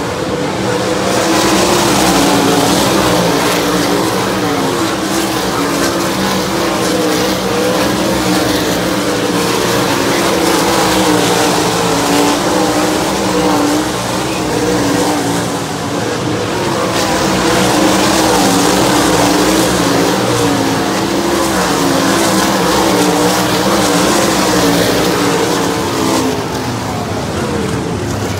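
A field of 410 sprint cars racing, their 410-cubic-inch V8 engines running at high revs without pause. The engine note wavers up and down as the cars come past and circle the track.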